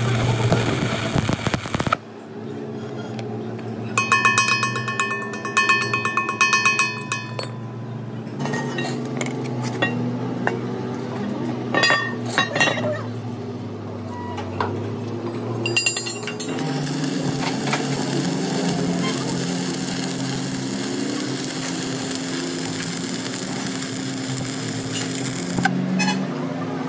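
Metal clinking and striking: a quick run of ringing taps lasting a few seconds, then scattered knocks, with a steady hum underneath in the later part.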